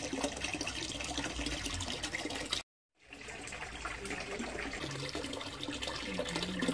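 Water trickling and splashing steadily, broken by a brief dropout to silence a little under three seconds in.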